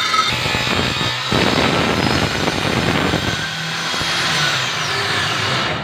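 Circular saw cutting through plywood, the motor whining steadily while the blade chews through the sheet. Near the end the pitch falls steadily as the blade spins down.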